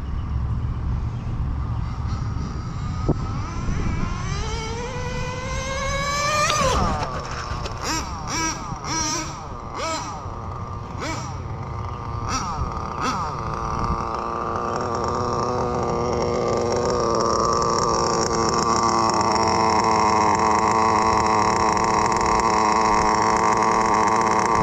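Small .12 nitro engine of an RC touring car on a speed run. It screams up in pitch to a peak about 7 seconds in, gives a series of short throttle blips, then holds a steady high whine that grows louder near the end.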